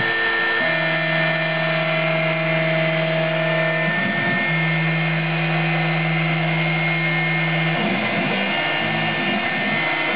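A Proxxon high-speed rotary tool running as the spindle of an Emco F1 CNC mill while it engraves a copper PCB, giving a steady high whine. Under it the mill's stepper motors hum at a steady pitch in stretches of a few seconds as the axes travel. The hum breaks off briefly about four seconds in and turns uneven after about eight seconds.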